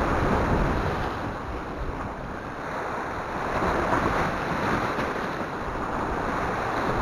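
Sea waves surging and breaking over a rocky shore ledge, a continuous rushing wash that swells loudest near the start and again about four seconds in, with wind on the microphone.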